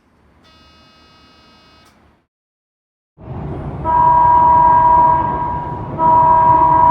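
An Odakyu Line train's warning horn sounding in two long steady blasts over the noise of the running train, starting about three seconds in. A faint steady electronic tone is heard briefly before it.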